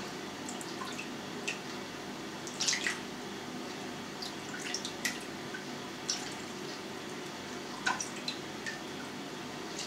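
Brine being ladled from a steel pot over pork belly in a glass dish: scattered short drips and splashes of liquid, the clearest a little under three seconds in and again near eight seconds.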